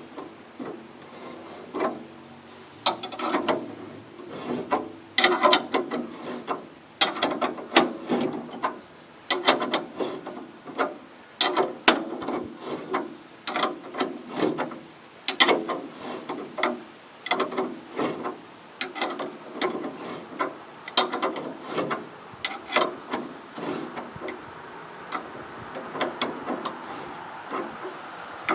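Hand-tool work on a bandsaw mill during a blade change: irregular runs of sharp metallic clicks and clanks, like a wrench working on nuts and bolts.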